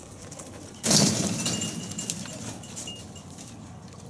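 A sudden jangling rattle about a second in that fades over the next second, followed by a few faint, short high peeps from meerkats.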